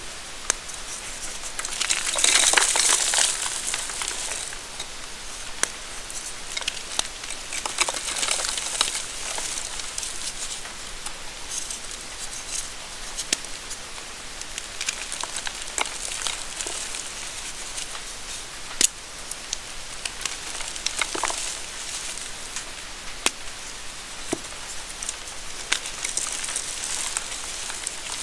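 Dried gym chalk blocks, reformed from water-crushed chalk paste, snapped and crushed by hand: dry crunching and crackling with sharp snaps as the pieces crumble into soft powder. The loudest burst of crunching comes about two seconds in.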